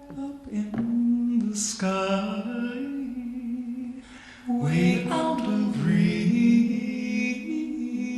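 Slow, gentle ballad: a solo voice singing long held notes between sung phrases, with a short pause about four seconds in.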